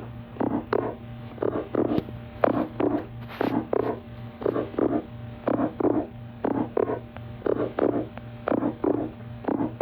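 Hedorah monster sound effect: a regular series of short gurgling pulses, about two a second, over a steady low hum.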